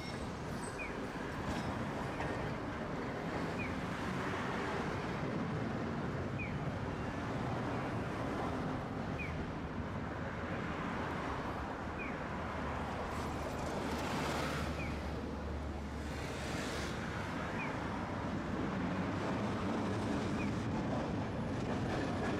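Street traffic: cars and a tram passing on a wide city road, a steady hum of engines and tyres that swells as vehicles go by close. A short high chirp repeats about every three seconds.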